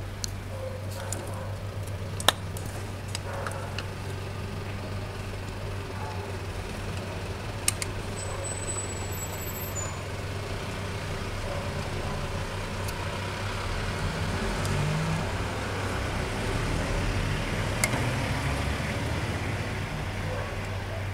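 Four-cylinder diesel engine of a Renault Scénic running steadily at idle. It has had a surging shake since an engine swap, which the mechanic suspects comes from a sensor. A few sharp clicks come from a screwdriver working on a sensor at the injection pump.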